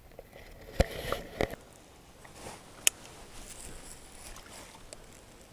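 Handling sounds aboard a plastic kayak: a few dull knocks against the hull in the first second and a half and a single sharp click about three seconds in, over faint water noise.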